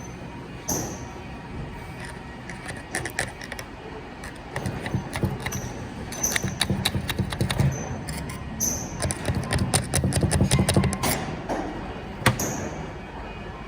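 Metal automatic-transmission parts being handled during a teardown: repeated sharp clinks and clanks, some ringing briefly, thickest in the middle, over a low rumbling of handling noise.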